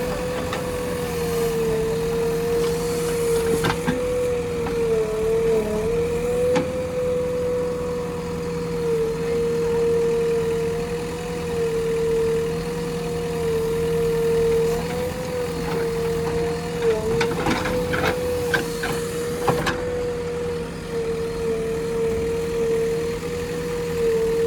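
JCB backhoe loader running while it works, with a steady, slightly wavering whine over the engine's hum. Scattered knocks, a cluster of them about two-thirds of the way through.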